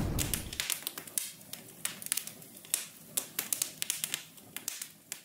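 Intro sound effect: a blast dying away in the first half second, then scattered sharp crackles and ticks of sparks crackling, thinning out toward the end.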